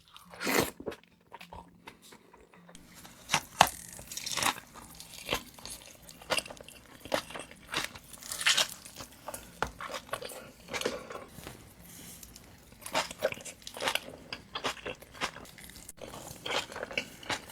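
Close-miked mukbang eating of In-N-Out burgers: crunchy bites and wet chewing in a string of short, separate crunches, quieter for the first few seconds.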